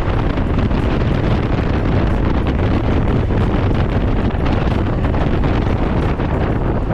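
Steady, loud wind buffeting the microphone while riding a Can-Am Ryker three-wheeled motorcycle, with a low rumble underneath.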